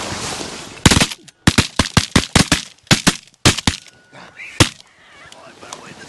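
A rapid volley of about fifteen shotgun blasts from several hunters firing at once, the shots coming close together and partly overlapping from about one second in, with a last single shot near five seconds.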